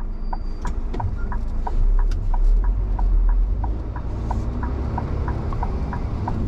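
Scania R450 truck's diesel engine running with a steady low rumble, heard from inside the cab, with the indicator ticking about three times a second.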